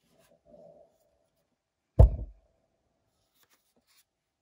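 A Milwaukee M18 FUEL cordless circular saw being handled and turned over in the hands: faint rubbing and clicks of its plastic housing, with one loud dull thump about two seconds in.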